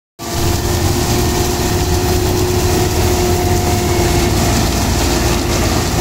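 John Deere sugarcane harvester running as it cuts and feeds standing cane: a loud, steady diesel engine and machinery drone with a steady whine held over it.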